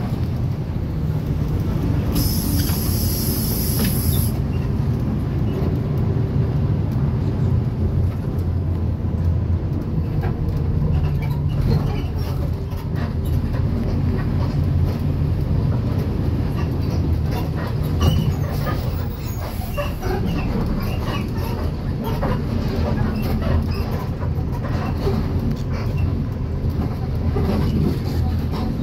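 City bus driving, heard from inside the passenger cabin: a steady low engine and road drone, with small rattles and clicks from the interior. About two seconds in there is a high hiss lasting about two seconds.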